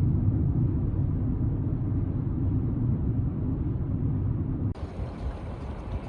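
Steady low rumble of a car's engine and tyres heard from inside the moving car. About four and a half seconds in it cuts abruptly to quieter wind noise on the microphone.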